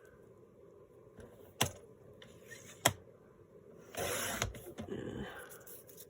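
Paper being handled and trimmed to size: two sharp clicks, then a short scraping cut through the paper about four seconds in.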